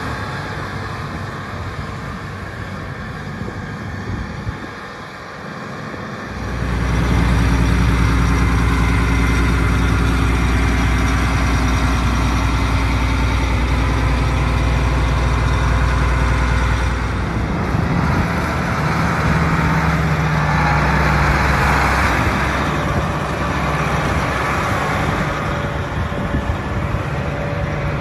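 John Deere 8640 four-wheel-drive tractor's six-cylinder turbo diesel engine running as the tractor is driven. It grows much louder and steadier with a low hum about six seconds in, and shifts again around seventeen seconds.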